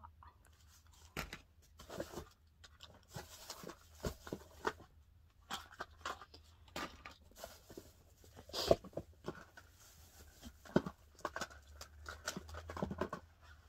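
Plastic packaging and drink sachets being handled: irregular rustling and crinkling with scattered taps, two sharper clicks standing out about nine and eleven seconds in.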